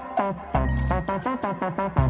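Upbeat background music with a steady beat and plucked or keyboard-like notes.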